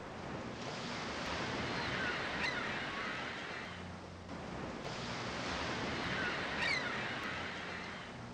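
Ocean surf: two waves wash in, each swelling and fading over about four seconds, with short bird calls in the middle of each swell.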